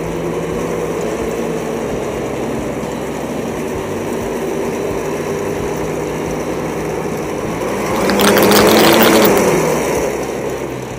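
2018 Arctic Cat Mountain Cat M8000 snowmobile's two-stroke twin engine running with the machine up on a stand, its track spinning freely. It runs steadily, then revs up and falls back about eight seconds in. The machine is being run so the newly set rear axle settles before the track deflection is rechecked.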